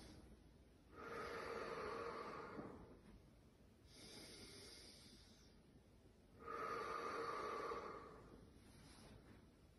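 A woman's slow, deep breathing during a guided breathing exercise: soft inhales alternating with two longer, louder open-mouthed exhales, each about two seconds long.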